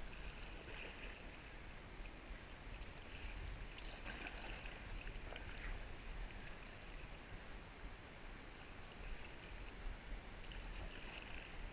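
Kayak paddle blades dipping into river water, soft splashes about every second as the boat is paddled along at an easy pace.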